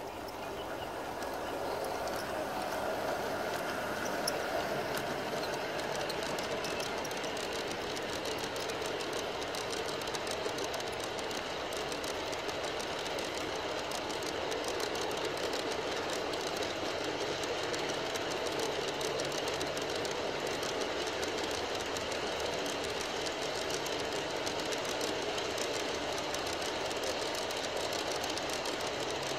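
G-scale model ore train of F3 diesel locomotives and ore hopper cars rolling past on outdoor track, its wheels making a fast, even clicking over the rails. The sound builds over the first couple of seconds as the train arrives, then holds steady as the cars keep passing.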